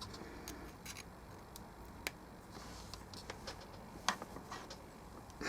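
Scattered light clicks and taps from handling a USB cable and its small plastic connectors, irregularly spaced with a couple of sharper clicks.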